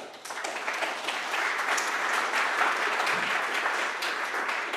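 Audience applauding. It starts abruptly and grows fuller, then begins to thin out near the end.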